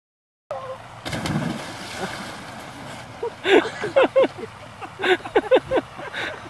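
A person plunging into a pond: a splash and the churn of water about half a second in, then from about three seconds a run of short, loud excited voice bursts from onlookers.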